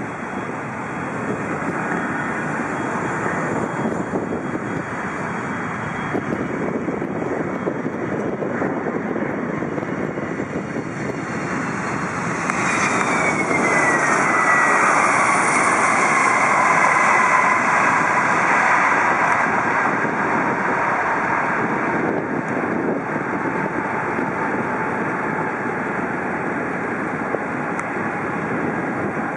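Boeing 767-200ER jet engines on landing: a steady rush that grows as the airliner comes in. It is loudest as the plane touches down and passes, with a whine that slides down in pitch as it goes by, then eases a little as it rolls away down the runway.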